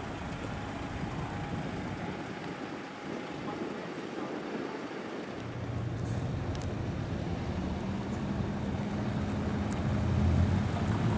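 A truck's engine running as it draws near, its low steady note coming in about halfway and growing louder toward the end, over a background of traffic noise.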